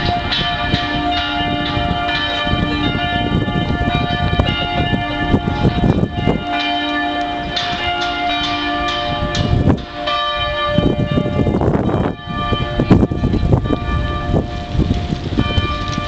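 Bells of the Dresden Frauenkirche ringing together, several bells striking in overlapping strokes with long ringing tones, loud throughout.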